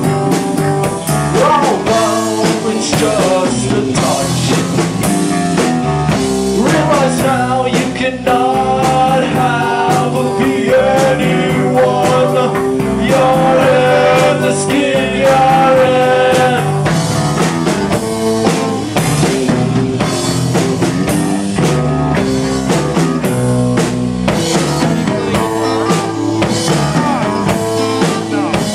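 A rock band playing loud and live: electric guitar, a drum kit and a singer's vocals.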